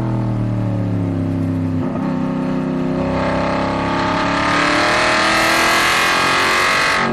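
Aston Martin Vantage GT4's V8 engine heard from inside the cabin, with a gear change about two seconds in as the car slows for a corner. It then climbs steadily in pitch and grows louder under hard acceleration out of the turn.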